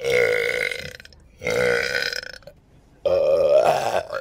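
Three loud, long belches one after another, each lasting about a second, with short pauses between them.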